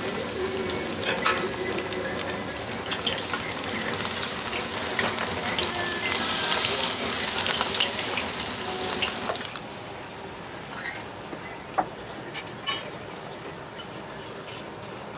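Tempura frying in hot oil: a dense, crackling sizzle that dies down sharply about two-thirds of the way through. After that comes a quieter hiss with two sharp clicks.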